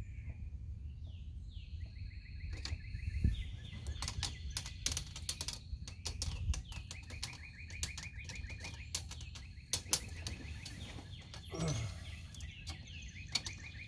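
Birds chirping in rapid trills, with scattered sharp clicks and taps from handling tools and wood over a low background rumble.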